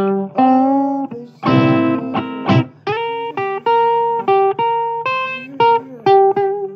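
Blues guitar playing, with no vocals: a run of single plucked notes and short phrases, some held and a few bent in pitch.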